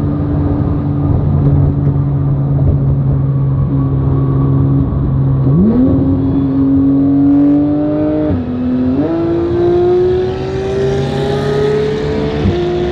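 Car engine running steadily, then accelerating hard from a roll about five and a half seconds in. The pitch drops briefly at a gear change a little past eight seconds, then keeps climbing. This fits a rolling-start race from around 50 mph.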